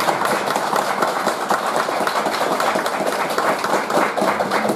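A roomful of people applauding: dense, steady clapping from many hands.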